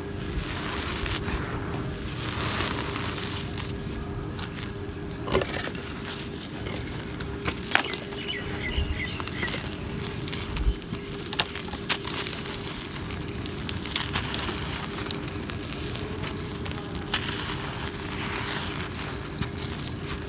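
Dry cement chunks and gritty cement powder being rubbed and crumbled by hand: a continuous gritty crunch and rustle with scattered sharp cracks as pieces break.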